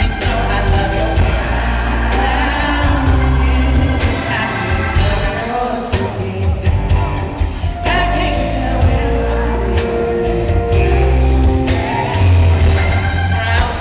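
Live R&B band playing, with a woman singing lead over electric guitar, bass and drums; the bass is heavy.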